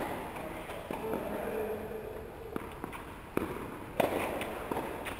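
Tennis ball being struck by rackets and bouncing on the court during a rally: about five sharp pops at uneven spacing, most of them under a second or two apart.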